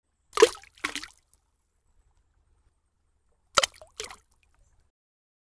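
Cartoon splash sound effects of an egg dropping into a bucket of paint: two quick double splashes about three seconds apart.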